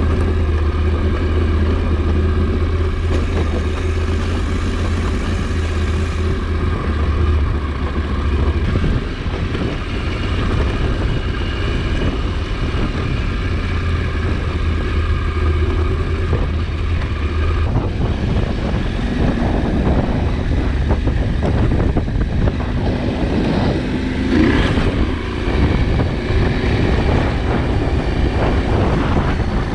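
KTM 790 Adventure's parallel-twin engine running while the motorcycle is ridden, a steady hum at first; from about 18 seconds in the engine note turns more uneven, with the revs rising and falling and more rough noise over it.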